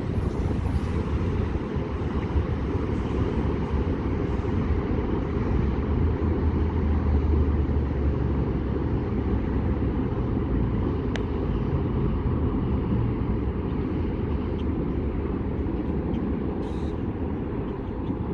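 Freight train cars rolling past: a steady low rumble of wheels on rail, easing slightly near the end.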